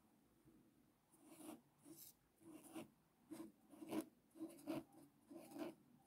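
Felt-tip marker writing on a paper card: a quick run of short, quiet pen strokes, beginning about a second in.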